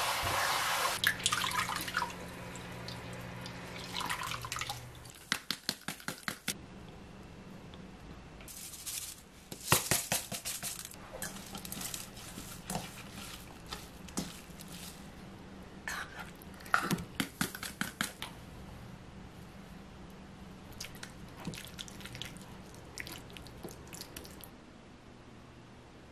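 Cold tap water running over blanched spinach in a steel colander, fading out within the first two seconds. After that come a quick run of small clicks and then scattered soft squelches and clicks as hands squeeze and toss the seasoned spinach in a stainless steel bowl.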